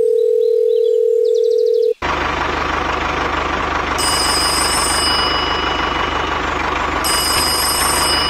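A steady mid-pitched beep for about two seconds. It cuts to the loud, steady engine-like running of a toy tractor with a fast low chug, and a high ringing tone comes in twice for about a second each.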